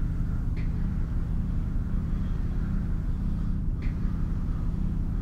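A steady low rumbling drone, with two faint brief sounds over it about half a second and just under four seconds in.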